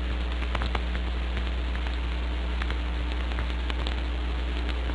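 Steady low hum under a hiss with scattered faint crackles and clicks: the background noise of an old film soundtrack recording, with no dialogue or music.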